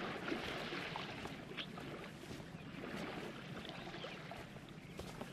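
Faint, steady rush of water with a few light clicks.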